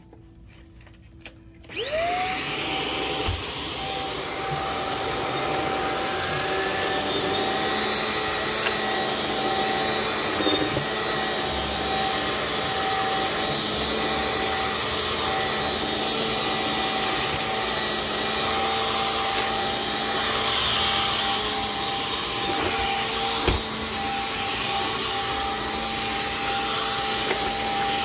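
Stick vacuum cleaner, silent apart from a few clicks, switched on about two seconds in, its motor spinning up with a rising whine. It then runs steadily with a high whine over a rushing hiss as its floor head goes over carpet. A single knock comes near the end.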